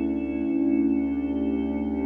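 Ambient background music of steady, sustained tones.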